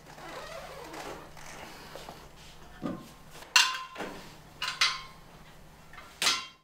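Steel LPG gas cylinder being handled: soft fiddling at the valve first, then a dull knock and four sharp metallic clanks, each ringing briefly, as the cylinder is lifted and knocked about.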